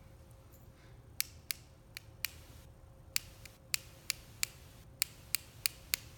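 A paint brush tapped against a pen handle to spatter green ink: about a dozen light, sharp clicks at irregular intervals.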